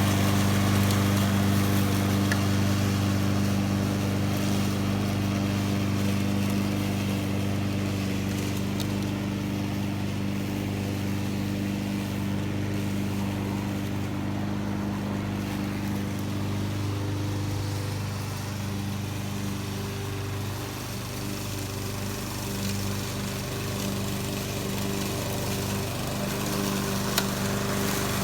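Honda HRX217 lawn mower's GCV200 single-cylinder engine running steadily while mowing, its sound dipping a little past the middle and growing louder again near the end.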